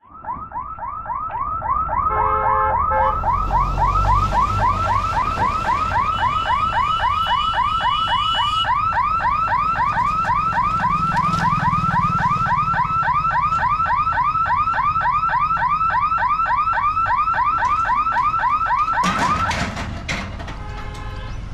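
Level-crossing warning siren wailing in a fast repeating rising sweep, about four a second, as the gate closes for an approaching train; it cuts off about nineteen seconds in. A low rumble of passing road vehicles runs underneath.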